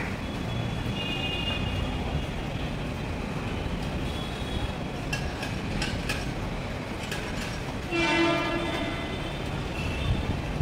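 Distant Mumbai suburban local train horns sounding over a steady low rumble of rail and city traffic, with short faint toots and one louder, fuller horn blast lasting under a second about eight seconds in.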